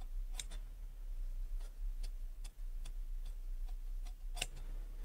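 Tailor's scissors snipping through blouse fabric: a series of faint, sharp clicks, irregular at about two a second, over a steady low hum.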